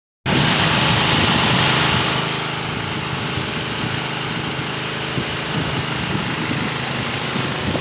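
Gas-powered pressure washer running: a small engine's steady drone under a loud hiss. It starts suddenly and eases slightly after about two seconds.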